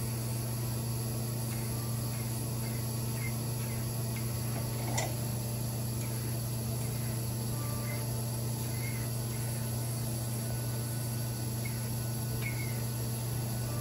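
Crystal microdermabrasion machine's pump running with a steady low hum while the suction handpiece is worked over the skin. Faint short chirps come and go, and there is one sharp click about five seconds in.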